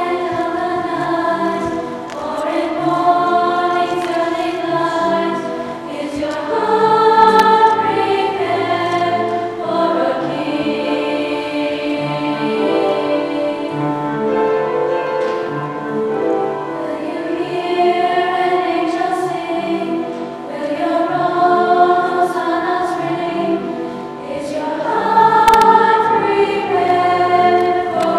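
Women's choir singing in harmony, sustained chords in phrases of a few seconds each that swell and ease.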